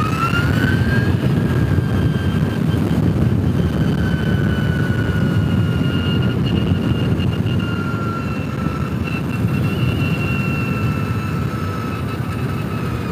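Energica electric motorcycle's motor whining under heavy wind and road rush. The whine rises briefly near the start, then sinks slowly in pitch as the bike slows downhill on strong regenerative braking, with no brake used.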